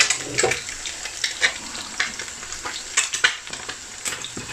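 An egg frying in hot cooking oil in a non-stick frying pan: a steady sizzle with irregular sharp pops and crackles of spitting oil.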